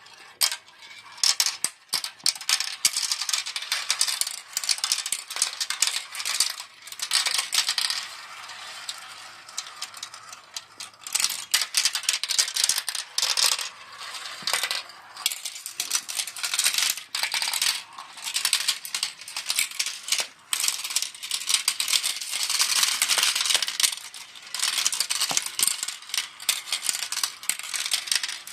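Marbles rolling and clattering down the tracks of a marble run, a dense stream of quick clicks and rattles over a rolling rush.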